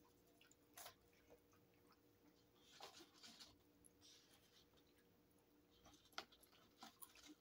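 Near silence: faint chewing of a hamburger and fries, with a few soft, short clicks scattered through it.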